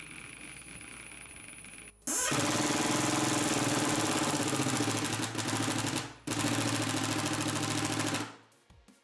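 Ryobi P238 brushless impact driver in its top speed, hammering a long drywall screw in with a rapid rattle of impacts. It starts about two seconds in, stops briefly around six seconds, then runs again and stops near the end.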